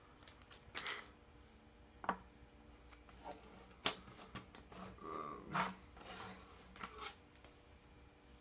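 Candy bar wrapper crinkling and rustling as it is torn open and handled, with scattered small clicks and one sharp tap about four seconds in.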